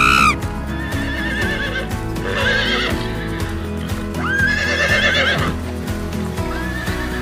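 Horses whinnying, with two long, quavering whinnies about two and a half and four and a half seconds in and the start of another near the end, over steady background music. A short honking call cuts off right at the start.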